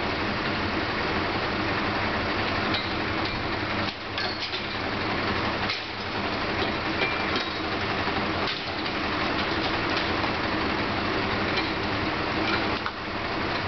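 Fire engine's turntable ladder truck with its engine running steadily. Scattered sharp knocks and cracks of icicles and ice being broken off the building's edge are heard over it.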